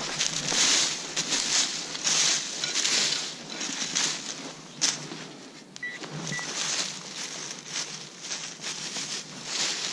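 Rustling and crunching in forest leaf litter and soil during metal detecting, with two short electronic beeps about six seconds in.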